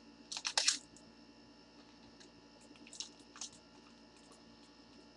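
Steady low electrical hum, with a few short, sharp rustling clicks about half a second in and again around three seconds in, typical of card packaging being handled.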